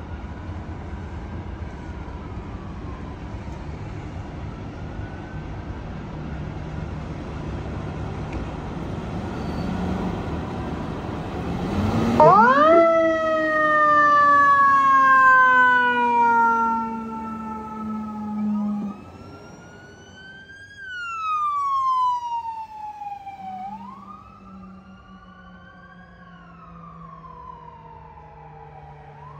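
Fire engine's heavy diesel engine rumbling as it pulls out, with a faint siren wail above it. About twelve seconds in, a loud mechanical siren spins up and winds down in a long falling wail, and quick-rising, slow-falling siren wails follow as the emergency vehicles drive off.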